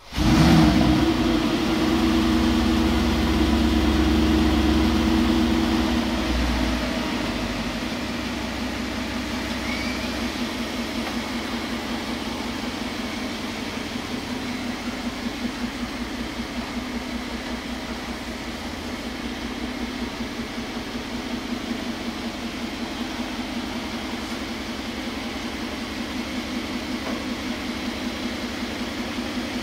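Mercedes-Benz G500's V8 petrol engine starting with a raised, higher-revving idle for about the first six seconds. It then settles to a steady idle with an even fast pulse.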